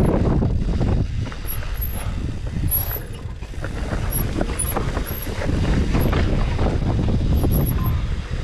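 Mountain bike riding over a rough dirt trail: tyres crunching and the bike rattling with many small knocks, over a steady low rumble.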